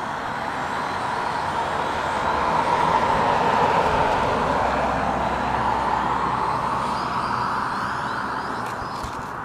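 A vehicle driving past: a rushing noise that swells to a peak about three to four seconds in, then fades away.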